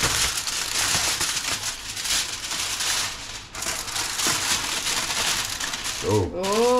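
Aluminium foil being peeled back and crumpled off a foil baking tray, a dense crinkling and crackling throughout. A short vocal exclamation comes in near the end.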